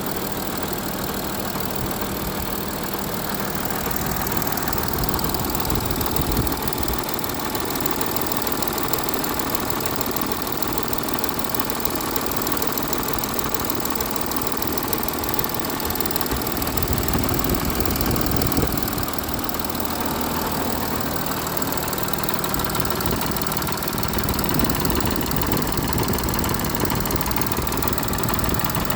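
Audi A6 Avant (4G) engine running, mostly steady, with a few slight swells in loudness.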